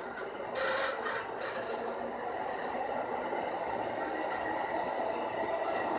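On-board running noise of a JR East E231 series electric train car, a steady rumble and hiss as the train moves, with a brief burst of hiss about a second in.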